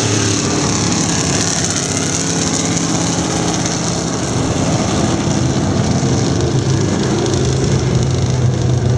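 Stock car engines running at low speed around a dirt oval under a caution, a steady drone with no car passing close by.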